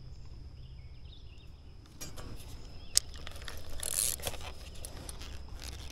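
A quiet low rumble, then from about two seconds in the clicks and rustle of a spinning rod and reel being handled, with one sharp click about a second later and a brief hiss near the middle.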